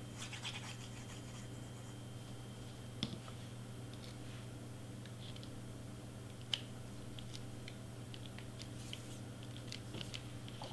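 Cardstock pieces being handled and pressed into place by hand: faint rustles and small taps, with two sharper clicks about three and six and a half seconds in, over a steady low hum.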